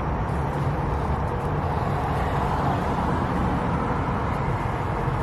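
Steady rumble of a car, an even engine-and-road noise that holds the same level throughout.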